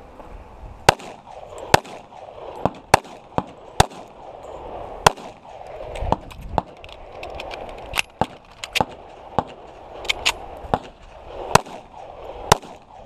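A string of .45 ACP pistol shots from a Les Baer Extreme Tactical 1911, fired at irregular spacing throughout, singly and in quick pairs.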